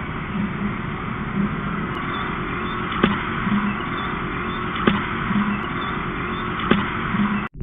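Steady city background noise with a traffic hum, picked up by an outdoor nest-camera microphone, broken by three sharp clicks spaced about two seconds apart.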